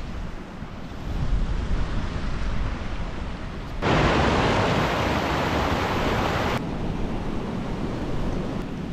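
Wind buffeting the microphone as a low rumble, broken about four seconds in by the loud, even rush of a fast-flowing mountain stream cascading over rocks, which cuts off sharply after about three seconds before the wind rumble returns.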